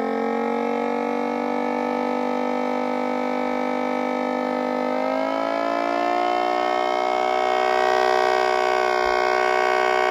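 Siren tone from a small blower sounding through a 3D-printed mini Thunderbolt 1003 siren horn. A steady wailing tone rises in pitch about five seconds in, then holds, a little louder.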